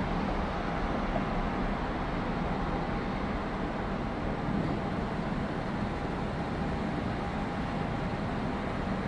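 Airbus A330 jet engines on final approach, heard from afar as a steady, even rumble.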